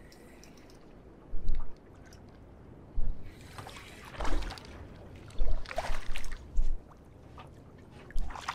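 Water splashing and sloshing against the hull of a small boat in several bursts, with heavy low thumps among them.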